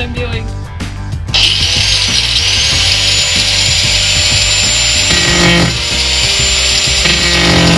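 Angle grinder with a cutting wheel starting up suddenly about a second and a half in and cutting an access hole through the sheet-metal cargo floor of a 1996 Ford Bronco: a harsh, loud hiss with a steady high whine that rises briefly as the wheel spins up. Background music with a steady beat plays underneath.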